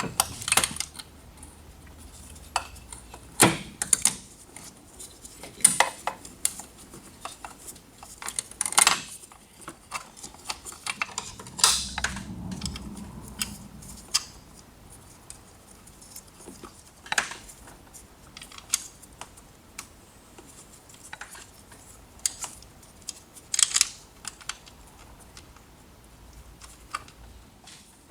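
Metal tools and parts clinking and clattering in irregular, scattered knocks and clicks, with a brief low rumble about twelve seconds in.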